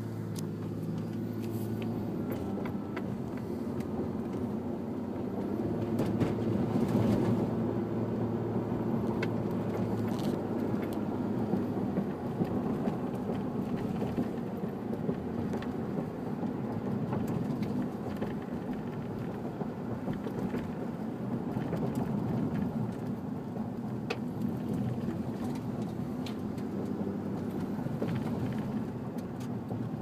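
Car engine and road noise heard from inside the cabin while driving, a steady low hum with a few faint clicks.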